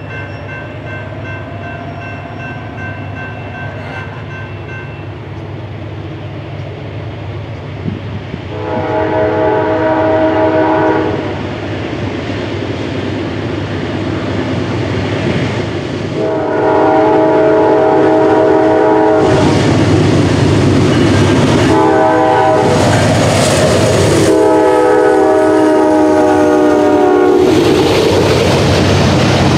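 GE D9-40CW diesel locomotive sounding its multi-note air horn as it approaches, in the grade-crossing pattern of two long blasts, one short and one long. Its engine and wheels grow louder as it passes close by in the second half, followed by the rumble and clatter of double-stack container cars.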